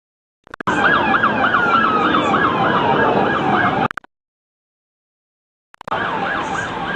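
Emergency vehicle sirens in a fast yelp, the pitch sweeping up and down about four times a second, with a second siren tone sliding slowly downward. The sound cuts in about half a second in, breaks off into dead silence for nearly two seconds, then cuts back in.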